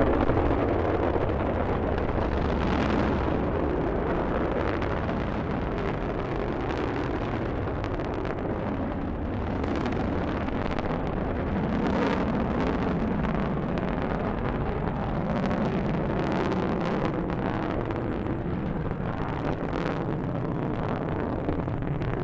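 Delta II rocket climbing after lift-off, its main engine and solid boosters making a steady rushing noise with frequent crackles.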